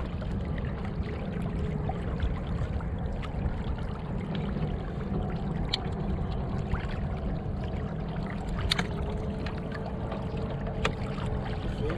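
Water lapping and running against the plastic hull of an anchored kayak, over a steady low rumble, with a few faint clicks about six, nine and eleven seconds in.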